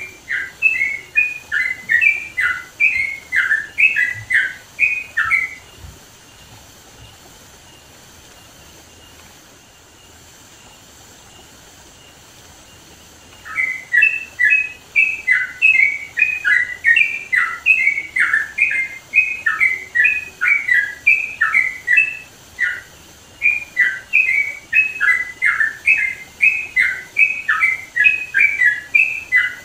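Sooty-headed bulbul (trucukan) singing loud, quick runs of short whistled notes. It falls silent for about eight seconds partway through, then starts up again and keeps singing.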